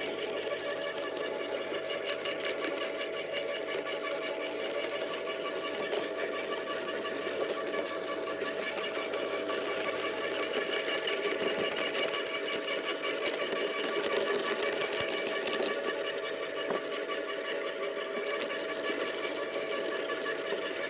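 Small electric garden shredder (wood chipper) running steadily with a motor whine while it chops kale stalks fed into its hopper.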